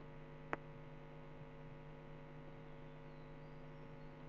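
Low, steady electrical mains hum with faint hiss from the recording chain, and a single faint click about half a second in.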